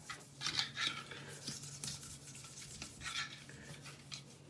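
Toothbrush scrubbing a bathroom sink, a few irregular scratchy strokes, over a faint steady low hum.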